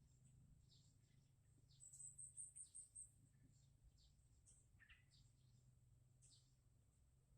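Near silence with faint, high bird chirps repeating about once or twice a second, and a quick trill of about six short high notes about two seconds in.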